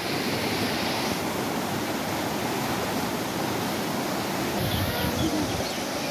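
Muddy floodwater rushing fast down a stream channel swollen by heavy rain: a steady, even rush of turbulent water.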